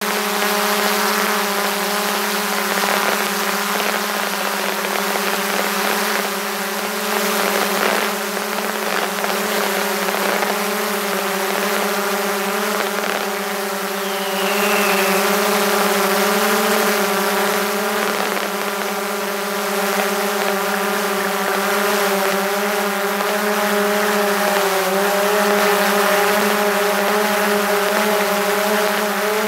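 DJI Mavic 2 Pro quadcopter's motors and propellers humming steadily in flight, heard from right on top of the drone, with a hiss of rushing air. The pitch dips slightly about three-quarters of the way through.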